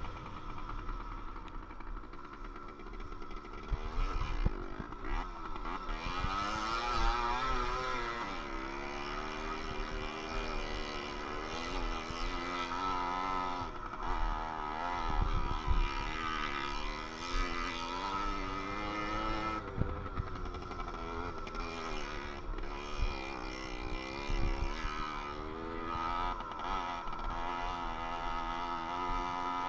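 Small two-stroke moped engine at racing speed, revving up and falling back over and over as the rider works the throttle and gears. The pitch swings up and down every few seconds. The bike is otherwise stock but fitted with a non-standard exhaust. Low rumble and knocks from riding over the bumpy ground run underneath.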